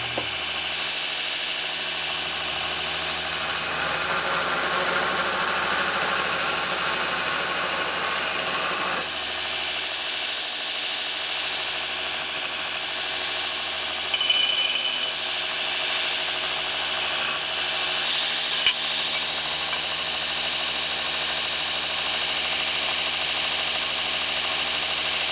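Grinder running steadily while chop-sawed steel pieces are held against it, truing up their cut ends. A single sharp click stands out about three-quarters of the way through.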